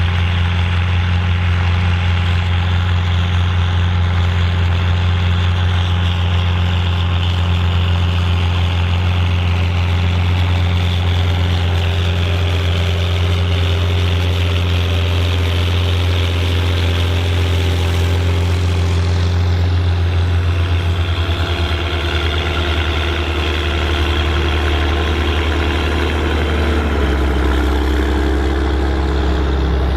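Volvo BM 810 Turbo tractor's turbo diesel engine running steadily, a deep even drone; the engine note drops a little about three quarters of the way through.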